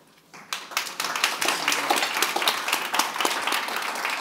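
Audience applauding: many people clapping, starting about half a second in and building quickly, still going at the end.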